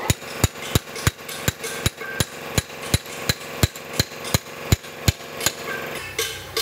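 Hammer blows on a steel drift punch, driving a part down onto a gearbox shaft: sharp metal-on-metal strikes, about three a second, stopping about five seconds in.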